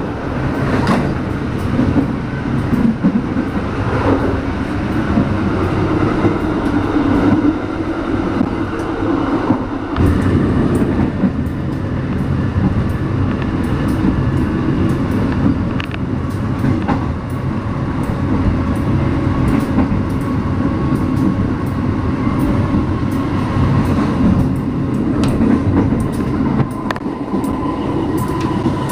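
Passenger train running, heard from the vestibule by the carriage doors: a steady rumble of wheels on the track with scattered knocks and rattles.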